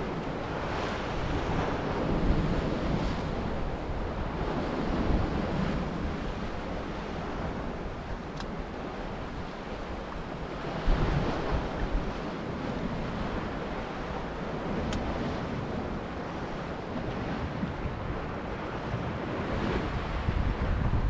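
Sea swell surging and breaking against the rocks below, rising and falling every few seconds, with wind buffeting the microphone.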